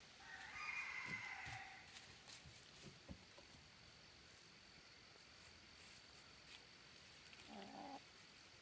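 Quiet hens calling softly: a higher call about a second in and a low cluck near the end, with faint ticks between and a faint steady high tone underneath.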